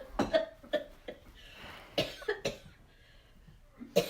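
An elderly woman coughing in short, sharp bursts: a run of coughs near the start and another about two seconds in, with a last one near the end.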